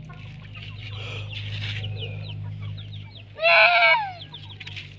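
Chickens clucking, with many short, high, falling peeps throughout, over a steady low hum. One loud cry about three and a half seconds in lasts just over half a second.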